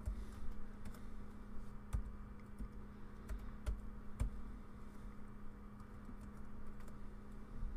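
Typing on a computer keyboard: short key clicks at an uneven pace as a password is keyed in.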